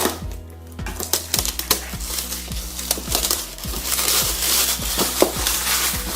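Box and packaging being opened and handled, with irregular crinkling, rustling and small knocks, over background music.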